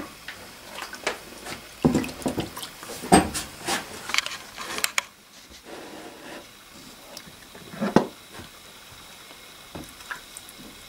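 Water splashing and sloshing in a plastic storage box, with irregular clatter and knocks in the first half and a single sharper knock about eight seconds in, as glued oak strips are laid into the water bath to soak.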